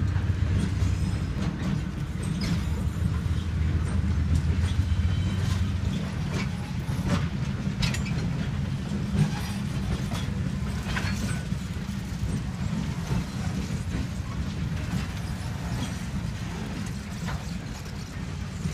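Light engine consist of GE diesel-electric locomotives rolling slowly past, their engines running with a steady deep rumble. Wheels clicking over the rails now and then.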